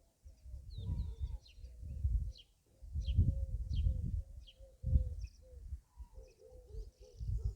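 Gusty wind buffeting the microphone in uneven low rumbling gusts. Small birds chirp high and short in the background, and a low cooing call comes in the middle and near the end.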